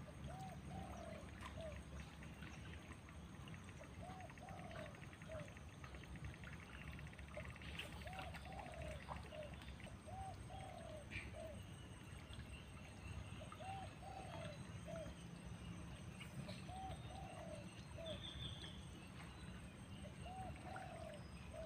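A dove cooing faintly and repeatedly, short phrases of two or three notes every few seconds, over a steady low background rumble, with a few faint high chirps from other small birds.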